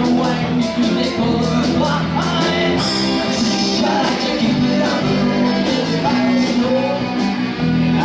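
Live rock band playing with guitar and a steady beat.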